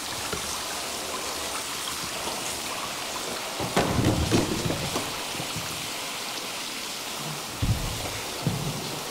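A shower running, its steady spray falling on a clothed man and splashing into the shower tray. There are several dull thumps about four seconds in and two more near the end.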